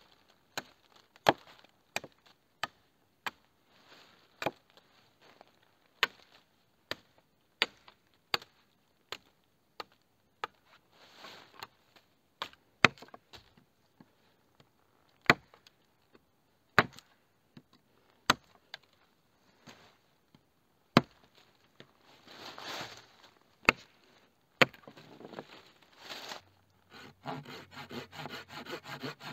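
A blade chopping into wood: about twenty sharp single blows at uneven intervals, with pauses and some rustling between them. Near the end, steady back-and-forth sawing of wood begins.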